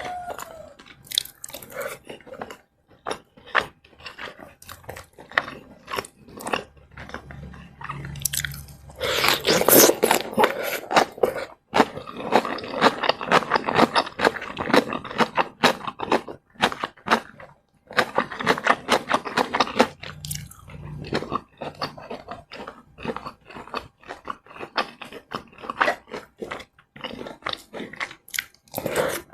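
Close-miked eating: a person biting and chewing a meal of fried rice, battered fried chicken liver and coleslaw. It comes as bursts of crunching and many short wet mouth clicks, loudest in a few stretches of chewing with brief pauses between.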